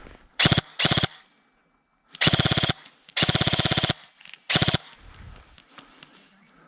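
Airsoft gun, the Raven Elite Type Zero CQB, firing on full auto in five bursts of rapid shots: two short bursts in the first second, two longer ones of about half a second to three quarters of a second, and a last short burst.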